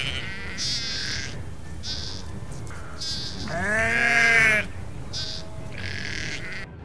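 Several sheep bleating, wavering calls one after another, the longest and loudest about halfway through, over a steady low rumble.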